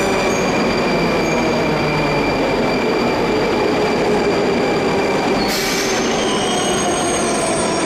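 An 81-740/741.1 'Rusich' metro train pulling in and braking to a stop. The whine of its electric traction motors slowly falls in pitch over steady wheel and running noise. A brief hiss comes about five and a half seconds in.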